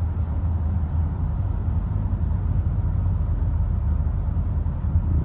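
Steady low rumble of road and engine noise inside the cabin of a 2019 Renault Koleos 2.5 petrol with CVT, driving at an even speed.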